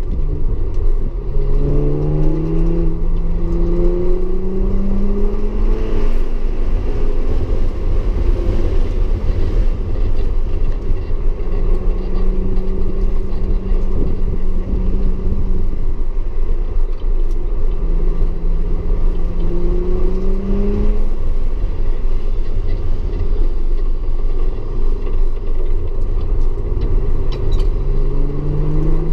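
Audi S4 engine accelerating on a rain-soaked race track, its note rising several times as it pulls through the revs, with a steady held stretch partway through. A heavy, constant low rumble runs underneath.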